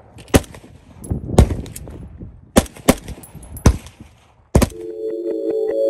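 Six shots from an AR-style rifle at irregular intervals, each followed by a short echo. Synthesizer music fades in near the end.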